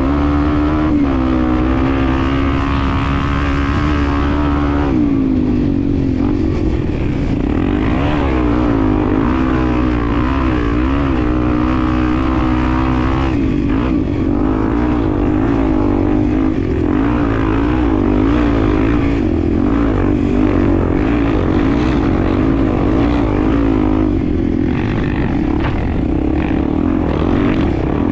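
Honda Tornado single-cylinder four-stroke engine running while riding, fairly steady for the first few seconds, then revs rising and falling repeatedly with the throttle.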